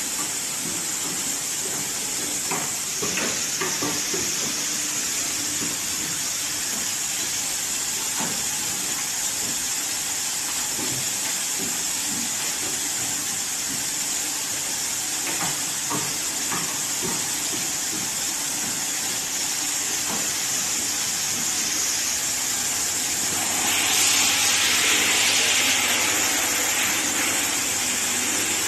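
Fully automatic hanger metal clip assembling machine running: a steady hiss with scattered light clicks from the mechanism. The hiss grows louder for a few seconds near the end.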